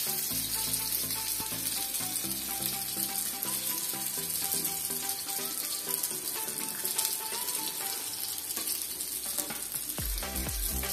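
Fish pieces in a spicy masala coating sizzling steadily in hot coconut oil in a frying pan, the fish fully fried.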